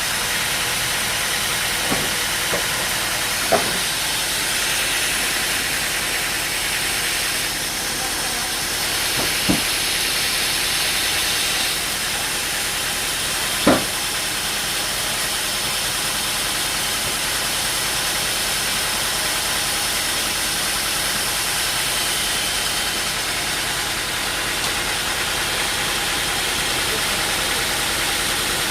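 An engine-driven machine runs steadily with a loud hissing noise, broken by a few short knocks in the first few seconds and again about ten and fourteen seconds in, the last one the loudest.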